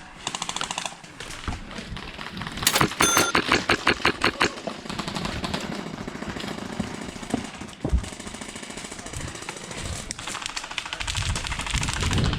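Airsoft guns firing: a very fast full-auto burst in the first second, then a louder string of rapid shots for about two seconds, around five a second.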